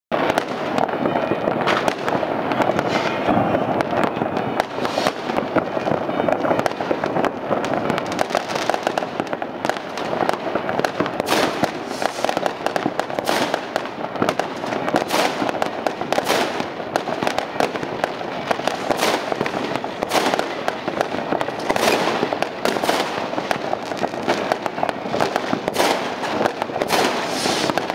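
Many consumer fireworks and firecrackers going off at once, near and far: a continuous rattle of bangs and crackling with no pause.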